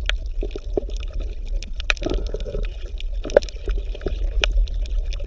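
Water bubbling and gurgling, with many irregular small pops and clicks over a low steady hum.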